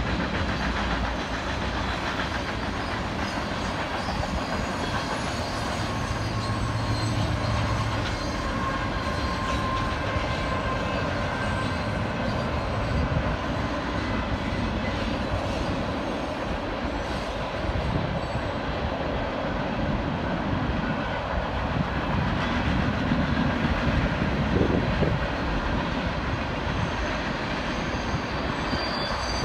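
CN freight train of tank cars and covered hopper cars passing, a steady rumble and clatter of wheels on the rails.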